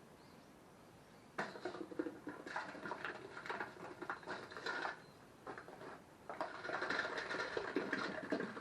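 Irregular scraping and crackling of a hand tool working rough material, starting about a second and a half in, easing off briefly past the middle and then picking up again.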